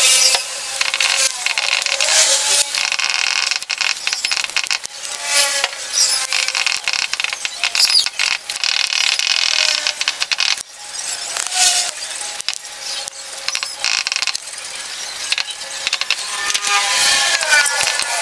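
Cloth rubbing hard on the glass of a CRT picture tube around the anode cap as it is wiped clean with petrol, giving scraping, clicking handling noise with a few brief squeaks.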